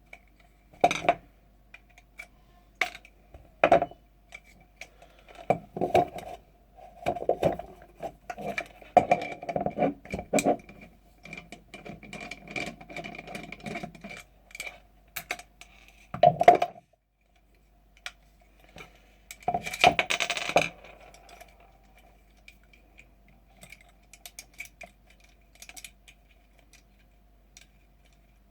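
Clicks, knocks and rattles of metal and plastic parts and tools being handled and set down while an airsoft rifle is taken apart to get at its gearbox. The knocks come in scattered clusters; the loudest is about 16 seconds in, and a dense run of rattling follows about 20 seconds in.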